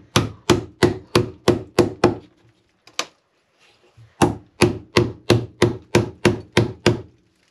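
Hammer striking the end of a steel chisel driven into an old wooden boat frame, about three ringing blows a second: a run of seven or so, a pause of about two seconds, then another run of about nine. The frame is sound rather than rotten, which makes it hard to cut out.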